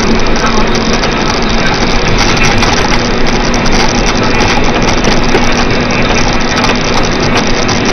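A vehicle engine running steadily, heard as a constant low hum under loud, even noise.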